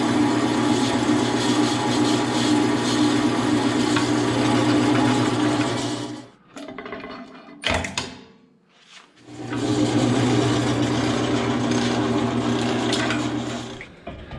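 Power tool cutting a heavy aluminium backing plate, its motor running steadily for about six seconds. It winds down with a single clank, then starts again and cuts for about four more seconds before stopping.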